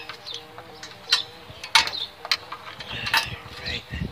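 Ratchet wrench and socket clicking and clinking against metal as the exhaust header nuts are tightened onto the cylinder head studs: about half a dozen sharp clicks at uneven intervals.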